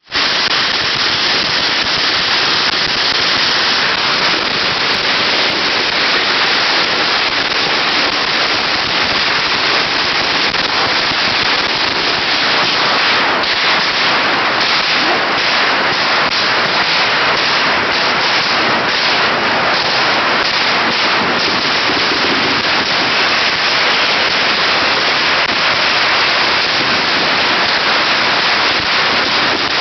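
Firecrackers going off in a dense, rapid crackle of many small bangs, with no break in the noise.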